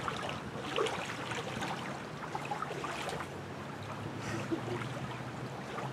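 Steady outdoor wind-and-water ambience, with faint scattered rustles. A low hum comes in about four seconds in.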